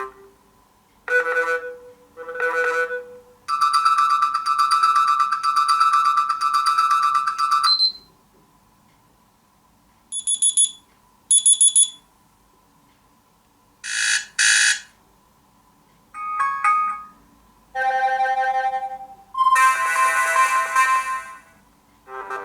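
Stock alarm tones of a BQ Aquaris 4 Android phone previewed one after another: short melodies and electronic beeps, each lasting from under a second to about four seconds, with brief gaps between them. Among them are one longer steady melody near the start and a pair of high beeps about halfway through.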